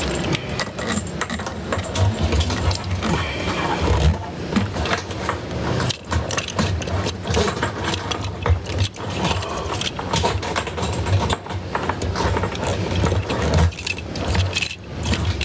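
Repeated clicking, rattling and light knocking of hard plastic and metal parts being handled, as a fuel pump assembly is worked into a car's fuel tank, over a steady low rumble.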